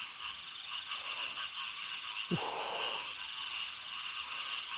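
A dense, steady chorus of night insects trilling high. About two seconds in there is one short sound that falls in pitch.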